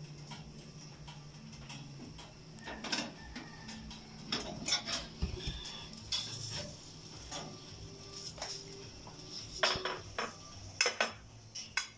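Metal clinks and clatters of a rotisserie spit with a roast chicken being lifted out of an oven and set down on a plate: a scatter of sharp knocks, busiest and loudest near the end.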